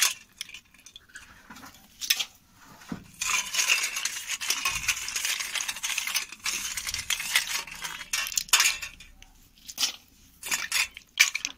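Dishes and metal utensils clinking and scraping in irregular spells, with a few sharp clicks.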